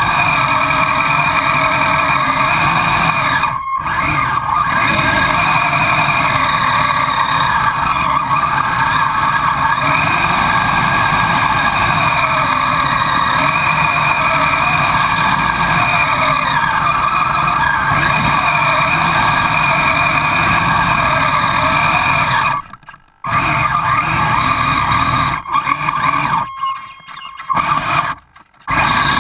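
Kyosho Blizzard SR RC snowcat's electric motor and tracks running steadily through snow. The sound drops out briefly three times near the end.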